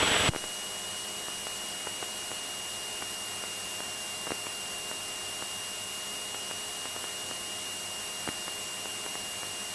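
Steady hiss with a thin, constant high whine from a light aircraft's intercom and radio audio feed, with a couple of faint ticks.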